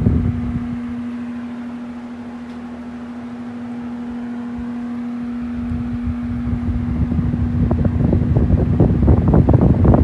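Arge Max 200 W 60 cm electric fan running, its motor humming steadily while the air from its blades buffets the microphone. The rush of air eases off over the first couple of seconds and builds back up from about six seconds in.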